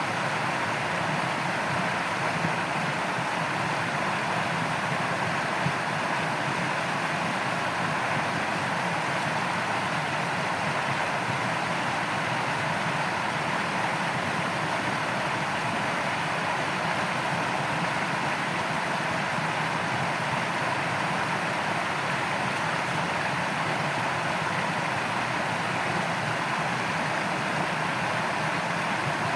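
Steady rushing of shallow stream water flowing over a riffle, an even, unchanging noise.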